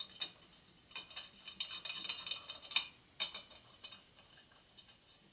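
A steel bolt being turned and wiggled by hand in a threaded hole of a Harley-Davidson Milwaukee-Eight cylinder head, giving quick metallic clicks and rattles from play in loose threads. The clicking comes in clusters over the first three seconds, with one sharper click just after, then stops.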